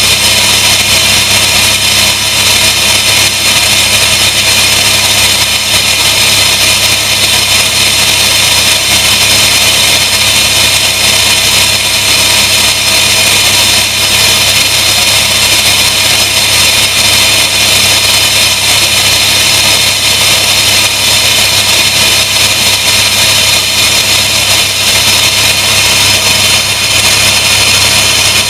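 Helicopter turbine engine and main rotor running at a steady cruise, heard from inside the cabin as a loud, even drone with constant low hum and a steady high whine.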